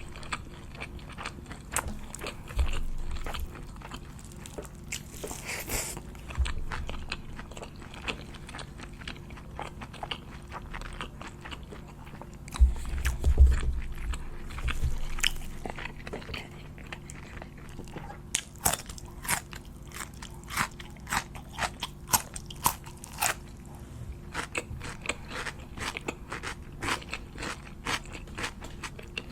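Close-miked eating: crisp crunching bites and chewing of crunchy food, a quick run of sharp crunches in the latter half, with a few low thumps, the loudest about halfway through.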